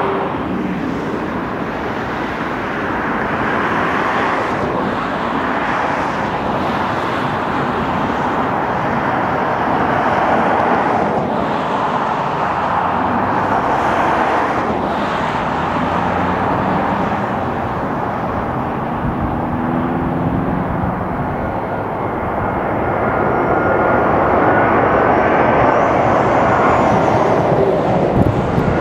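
Jet airliner engines on landing approach: a steady rushing drone that grows louder over the last several seconds, with a faint high engine whine coming in near the end as a Boeing 777-200ER nears.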